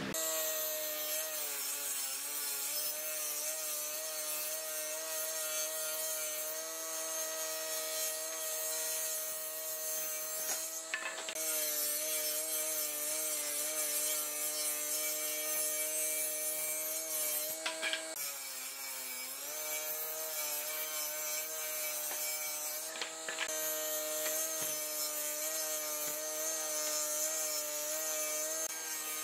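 Electric woodworking machinery running with a steady motor hum and the hiss of cutters working wood. About two-thirds of the way through, the motor's pitch sags briefly under load and then comes back up.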